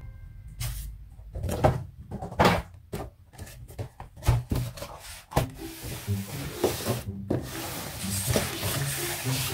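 Close-up rubbing and scraping of objects being handled, with several sharp taps in the first half, then a steadier, denser scraping from about six seconds in.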